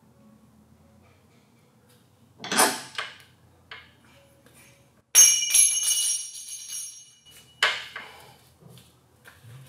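Metal clunks and clanging as a Nissan 350Z's rear differential is worked loose from its mount by hand: a loud scrape-and-clunk about two and a half seconds in, then a loud metallic clang that rings on for about two seconds, and another sharp knock shortly after.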